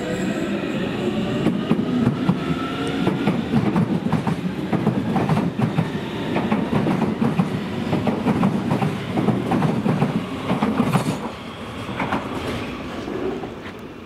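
Electric commuter train running close past the platform. Its wheels rumble and clatter over the rail joints, with a faint rising whine in the first few seconds. The sound eases off about eleven seconds in.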